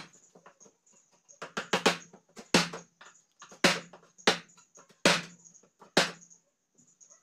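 Hammer driving a plastic-handled wood chisel into a wooden window sash frame: a quick few blows, then single sharp knocks about once a second.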